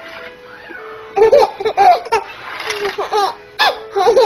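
Babies laughing in a string of short, high bursts, starting about a second in.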